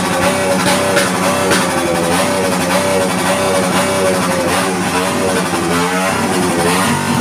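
Loud music with guitar and drums, a wavering melody over a steady beat.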